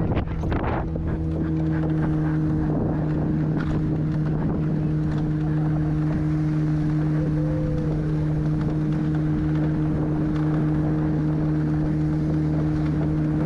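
Motorboat engine running at a steady speed with an unchanging pitch while the boat is underway, with wind buffeting the microphone. A few sharp knocks in the first second.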